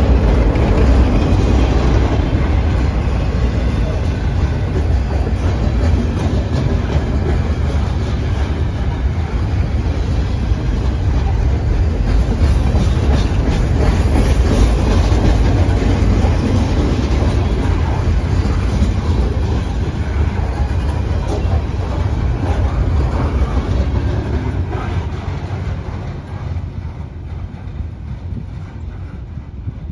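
Freight cars of a long manifest train rolling past on the rails, a loud steady rush of wheels on track that fades over the last few seconds as the end of the train moves away.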